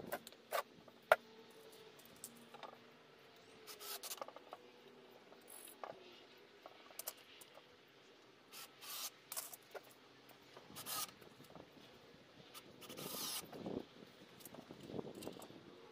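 Faint handling noises as wooden parts and a plastic box of screws are moved: scattered light clicks, short scrapes and rustles, a little louder in the second half.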